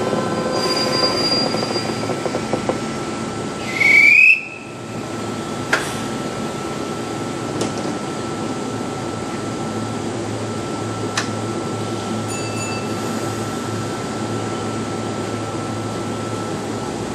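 Kintetsu 26000 series Sakura Liner electric express train drawing into the platform and slowing to a stop beside a standing train, with steady running noise. A brief, loud squeal rising in pitch comes about four seconds in, then a few sharp clicks and a steady whine with a low hum as the train stands.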